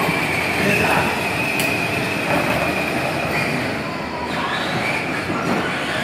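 Battery-powered Chevrolet Silverado ride-on toy truck driving: its electric motors and gearboxes give a steady high whine over the rumble of hard plastic wheels rolling on a concrete floor. The whine drops back about three seconds in.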